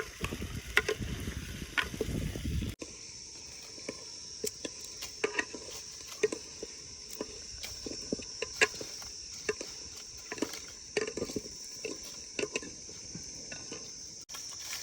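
Chicken drumsticks frying in mustard oil in a cooking pot, sizzling with irregular sharp pops and crackles. After a sudden cut about three seconds in, a steady high chorus of crickets runs under the pops.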